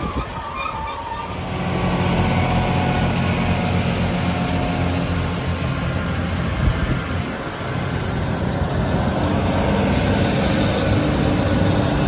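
Northern Class 158 and Class 156 diesel multiple units pulling away under power, their diesel engines running hard. The sound grows louder about a second and a half in, then holds steady.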